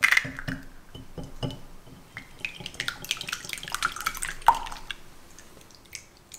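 Two raw eggs being beaten with a silicone-coated balloon whisk in a glass bowl: quick irregular sloshing and light tapping of the whisk against the bowl, which stops about five seconds in.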